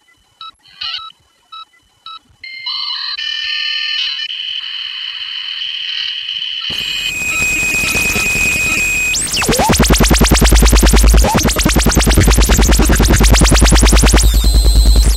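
Electronic dance track intro: telephone-dialing beeps, then stepped synthesized tones and a rising noise wash, before a fast, heavy, distorted kick drum with deep bass comes in about two-thirds of the way through.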